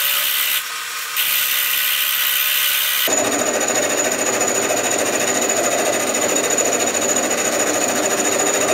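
Metal lathe running while turning the outer diameter of an aluminium casting, with a steady machining noise. About three seconds in the sound grows fuller and a thin high whine joins it, as the cut takes hold.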